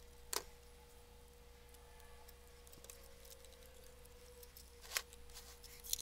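Hand crimp tool closing on small Molex-style wire terminals: sharp clicks about half a second in and again twice near the end, over a quiet background.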